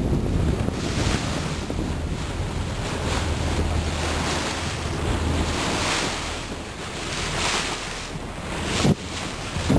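Wind buffeting the microphone and sea water rushing and splashing past the hull of a power boat under way, in repeated swells, with a low steady hum underneath. A sharp thump near the end.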